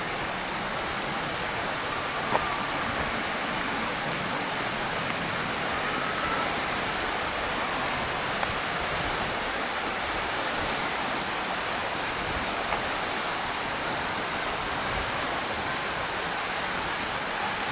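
Waterfall: the steady, unbroken rush of falling water, an even hiss across the whole range.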